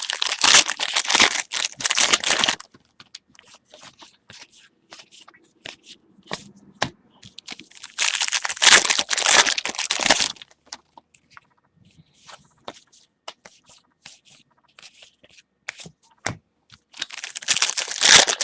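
Trading-card pack wrappers being torn open and crinkled, in three spells of a couple of seconds each: at the start, around the middle, and near the end. Between them come scattered light clicks and rustles of cards being handled.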